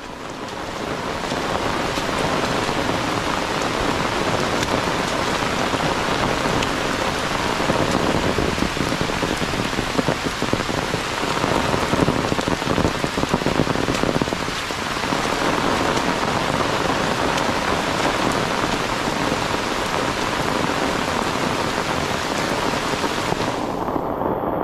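Heavy rain falling steadily, a dense hiss of drops on foliage and wet ground, fading in over the first couple of seconds.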